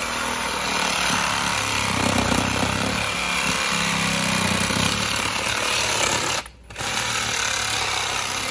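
Reciprocating saw cutting through PVC pipe, running steadily with one brief stop about six and a half seconds in.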